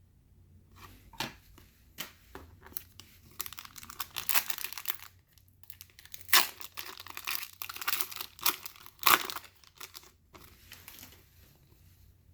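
Trading card pack wrapper being torn open and crinkled by hand. A few sharp clicks come first, then two spells of dense crinkling and tearing, the second longer and louder.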